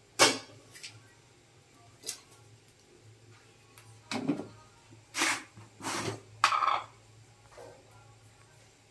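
Kitchen handling sounds around a large aluminium cooking pot: a sharp knock about a quarter second in, then several short clunks and rustles as lemongrass and leaves go into the pot of water and a plastic bag is handled, over a faint low hum.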